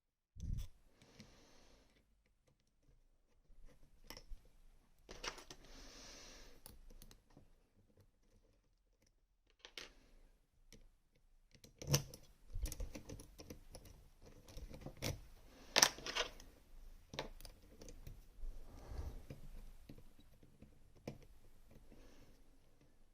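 Faint, irregular small metal clicks, taps and scrapes from handling a Rosengrens 32CK2 lock and its picking tools, with short stretches of scraping and a sharper click about two-thirds of the way through.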